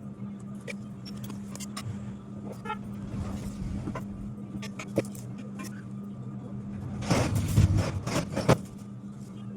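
Steady low electrical hum with scattered light clicks, and a louder stretch of clattering and rattling about seven seconds in that lasts a second or so.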